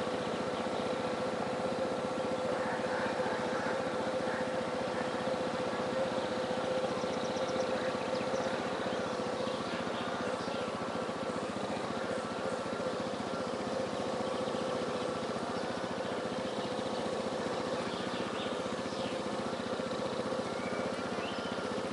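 A small motor running with a steady, unchanging hum, the drive of a lure-coursing machine pulling the lure line across the field. Birds chirp faintly now and then.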